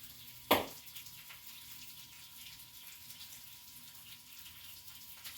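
Faint steady running water, like a kitchen tap, with small scattered ticks and one brief loud sound about half a second in.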